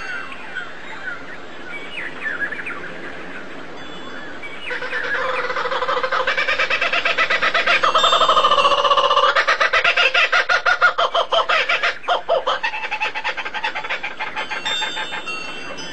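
Bird calls: a few short falling chirps, then from about five seconds in a loud, rapid chattering run of calls that thins out near the end.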